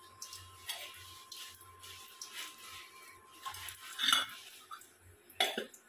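Short clinks and knocks of metal kitchen utensils and cookware being handled, a handful of separate strokes, the loudest about four seconds in and again about five and a half seconds in.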